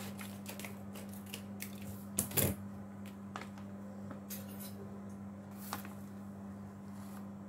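A plastic packet of crispy-frying flour being handled: scattered faint clicks and crinkles, with a louder short rustle about two seconds in and another near six seconds, over a steady low electrical hum.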